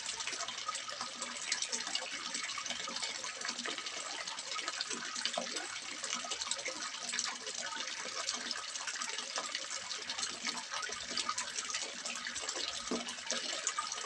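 Water splashing steadily into a small fish pond, a continuous fine patter of splashes without a break.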